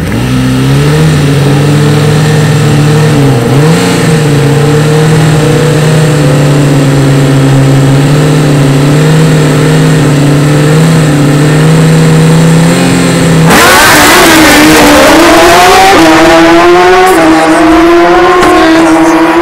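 Drag-racing motorcycle engines are held at steady high revs on the start line. About thirteen seconds in they launch: the sound jumps louder and the engine note climbs, dropping and rising again with each upshift.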